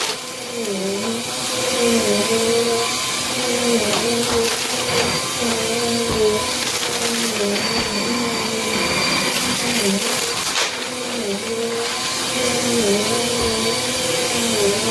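Small Bissell vacuum cleaner running with its brushroll spinning. A steady motor hum over a rushing hiss, the hum dipping briefly in pitch every second or so as the vacuum is pushed back and forth.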